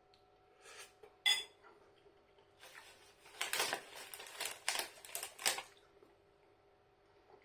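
Cutlery against a bowl of noodles: one sharp ringing clink about a second in, then a few seconds of scraping and clattering in the bowl.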